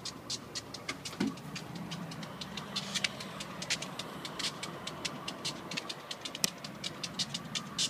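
Diesel freight train approaching from a distance, its locomotives a faint low hum that comes up about a second in. Over it, a continuous run of quick, sharp, high clicks, about four or five a second and uneven, is the loudest sound.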